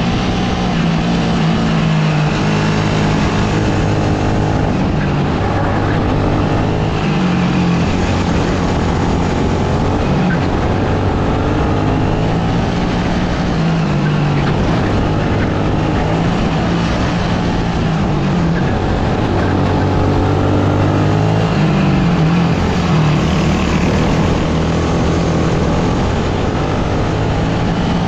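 Sodikart RX250 racing kart's engine heard onboard at racing speed, its pitch dropping several times as the kart slows for corners and climbing again as it accelerates out.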